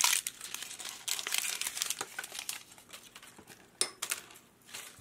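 Thin paper wrapper crinkling and tearing as it is peeled off a small toy piece by hand, the crackling thinning out after about two seconds, with one sharp click a little before four seconds in.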